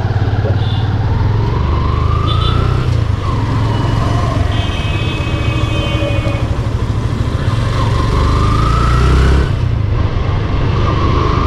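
Motorcycle engine heard from the rider's seat, pulling away from a stop and accelerating: its pitch rises through each gear and drops back at the shifts, over a steady low rumble.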